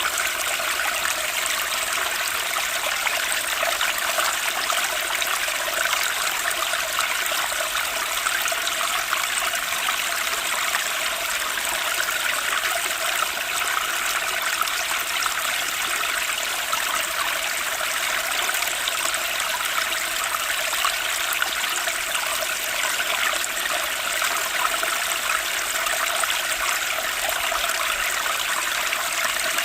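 Flowing water of a stream, running steadily without a break.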